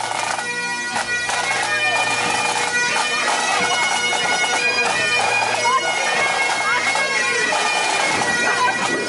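Highland pipe band playing: Great Highland bagpipes carry a tune over their steady drones, with snare and bass drums keeping the beat.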